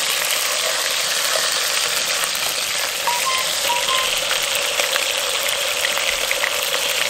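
Raw chicken breasts sizzling steadily as they fry in hot oil in a cast-iron Dutch oven.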